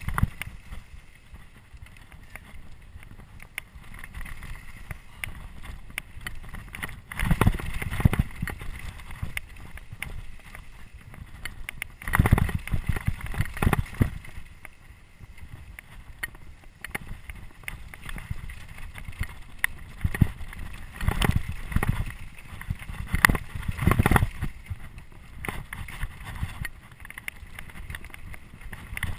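Trek Remedy 8 full-suspension mountain bike ridden fast down a dirt trail: tyres rumbling over dirt and stones with wind buffeting the microphone, and bursts of rattling clatter from the bike over rough ground about seven, twelve and twenty-one seconds in.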